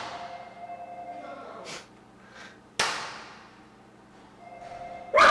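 Two sharp, loud bangs about three seconds apart, each ringing out and fading over about a second.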